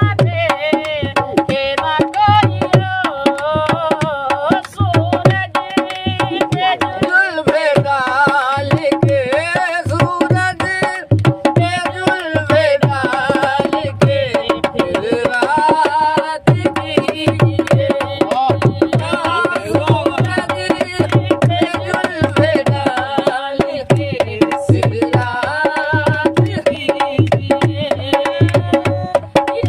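Folk ghazal sung in Hindi to a hand-played dholak, the drum keeping a steady rhythm under the singing voice.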